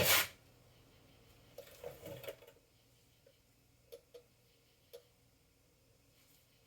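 Hands working on the pressure washer's engine shaft while applying anti-seize: a short scuffing rub at the start, another rub about two seconds in, then three light clicks.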